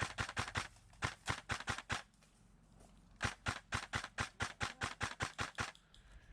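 Airsoft gun firing rapid strings of shots at about five a second: a short string ending about half a second in, another about a second in, and a longer one from about three seconds to near the end.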